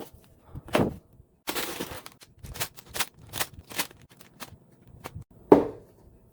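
A LEGO set's cardboard box and packaging being opened by hand: a series of sharp clicks and snaps, with a brief rasping noise about a second and a half in and a louder snap near the end.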